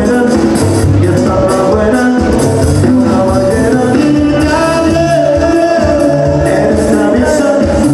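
Live norteño music played loud through a PA: a tuba bass line with accordion, guitar and drums, and singing.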